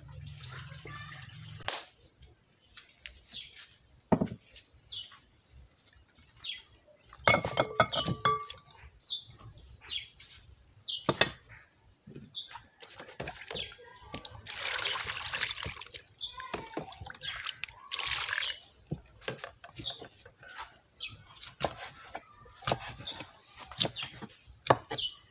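Wet eating sounds from a fufu and soup meal: scattered mouth smacks and clicks, with two longer hissing, slurping stretches about halfway through.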